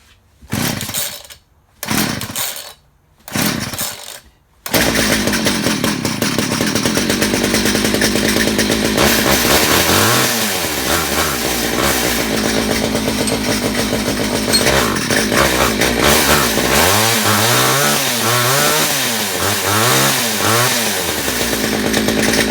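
Homelite 240 two-stroke chainsaw being pull-started on choke: three short cranking pulls that don't catch, then it starts about five seconds in and runs on. The engine is revved on the throttle, rising and falling around ten seconds in and four times in quick succession near the end, running well enough that the owner judges it needs no tune-up.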